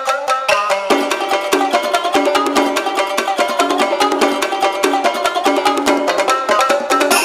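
Upbeat background music: a quick plucked-string tune over an even, brisk rhythm, with lower notes coming in about a second in.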